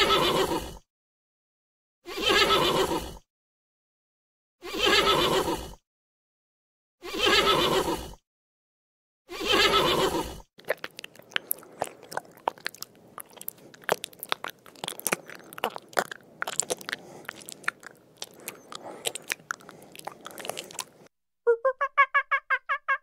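A large animal's call, about a second long, repeated five times at even spacing. Then about ten seconds of crunching and chewing. Near the end a fast, pulsing call begins.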